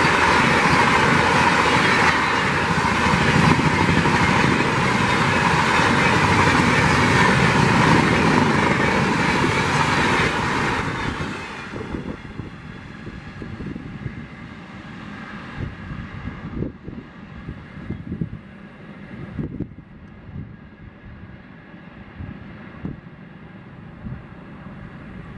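A Rajdhani Express of LHB coaches rushing past at speed: a loud, steady rush of wheels on rail, which fades away about halfway through as the end of the train passes and recedes. What follows is a much quieter rumble with scattered low thumps.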